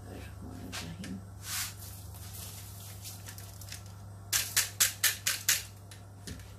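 Washed rice tipped from a mesh strainer into a pan of stock. A little past the middle comes a quick run of about six sharp knocks, as the strainer is rapped on the pan's rim to shake the last rice out, over a steady low hum.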